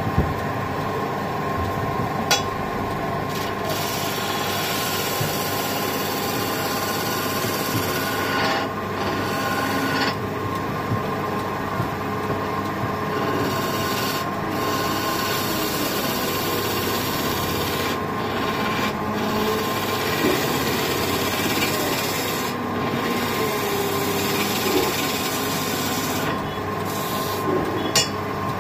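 Wood lathe spinning a wooden spindle while a hand-held turning chisel cuts into it: a steady scraping over the running lathe, with a few brief clicks.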